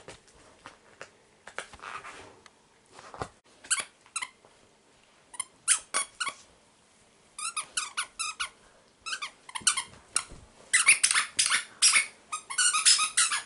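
A dog toy squeaking again and again as a husky chews it, in quick clusters of short squeaks that come thicker and louder toward the end.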